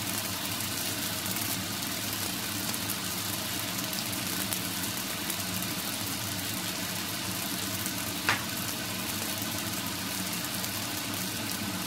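Steady kitchen hum with a light hiss over it, as rice heats in a nonstick frying pan on the stove; one sharp tap about eight seconds in.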